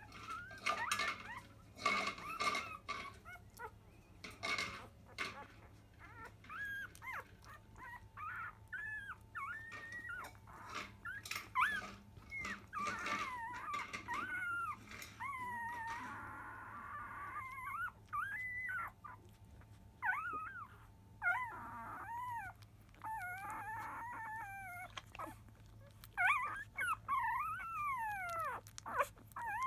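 Newborn Labrador Retriever puppies, five days old, squeaking and whimpering while they nurse, in many short, high cries that slide up and down in pitch. There are clicks in the first few seconds.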